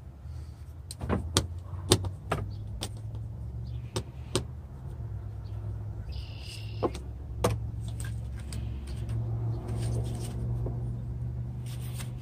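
Sharp plastic and metal clicks and knocks as a truck windshield wiper arm and blade are handled and fitted together, over a steady low hum. The clicks come in a quick run early on and a few more near the middle.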